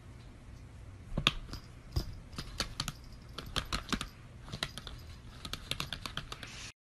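Irregular clicks and taps on a laptop keyboard, starting about a second in.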